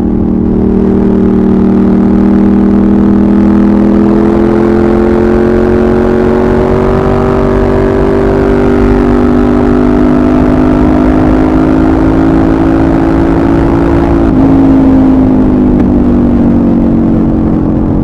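Suzuki SV650S's 90-degree V-twin engine under way, its pitch rising gradually as the bike gathers speed. About fourteen seconds in the pitch drops suddenly with a shift to a higher gear, then eases slightly lower.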